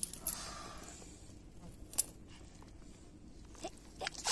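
Quiet handling noises from hands and a line working in a muddy hole, with a few sharp clicks, the loudest about two seconds in.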